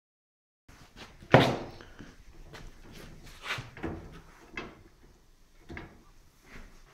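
Knocks and clunks of a furniture panel being handled on the table of a Griggio GF 21E boring and insertion machine, against its pneumatic hold-down clamps. One loud, sharp bang comes about a second in, then a run of lighter, irregular knocks.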